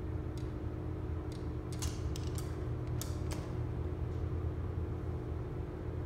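Steady low hum inside a stalled freight elevator car, with about eight light clicks in the first three and a half seconds as buttons on the car operating panel are pressed. The car does not respond.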